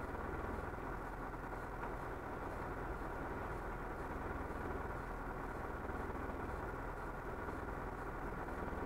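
Fire truck's engine idling steadily.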